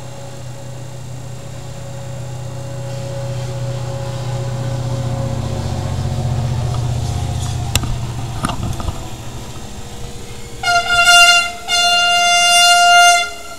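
Two loud horn blasts on one steady pitch near the end, a short one and then a longer one. Before them a low hum swells and fades, with a sharp click about halfway through.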